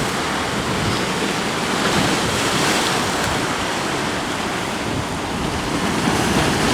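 Heavy ocean surf breaking and washing over lava rocks, a steady rushing roar that swells a little near the end, with wind buffeting the microphone.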